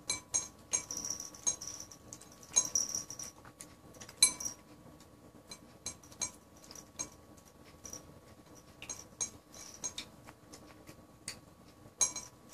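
Siamese cat eating tuna from a bowl: wet smacking, chewing and licking clicks in irregular bursts, with short pauses between them.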